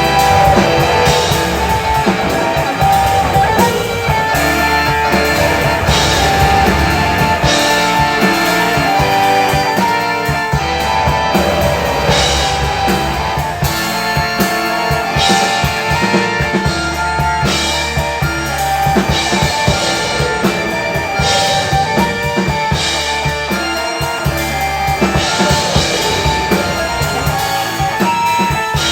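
Rock band playing loud, steady rock music: drum kit, guitar, bass and keyboards.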